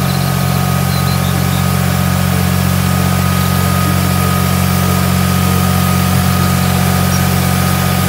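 Massey Ferguson tractor's diesel engine running steadily at a constant speed, with a steady hiss over it.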